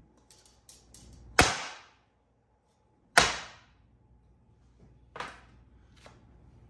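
Baking tray of freshly piped macaron batter banged down hard on a table, three sharp hits with a short ringing tail, the last one softer. The tray is rapped to pop air bubbles and make the piped rounds flatten out.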